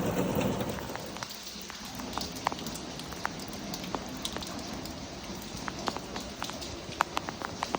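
Steady rain falling, with sharp ticks of single drops striking nearby surfaces. The ticks come more often in the second half.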